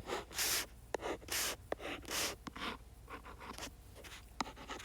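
Pen writing: a series of short scratching strokes, with a few sharp taps in between.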